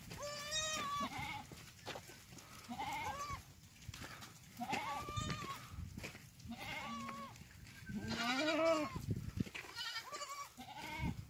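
Goats bleating repeatedly: about six quavering calls a second or two apart, the longest and loudest about three-quarters of the way through.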